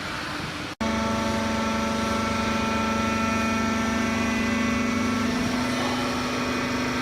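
Hydraulic baling press running, a steady machine hum with a stack of high overtones. It breaks off abruptly for an instant about a second in, then carries on steadily.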